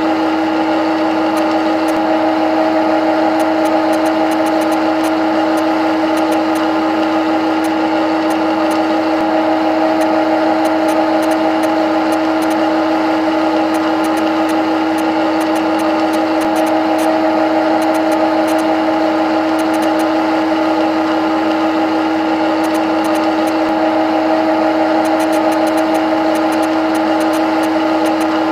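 CNC lathe running: a steady pitched machine hum over an even hiss, with faint high clicks scattered through.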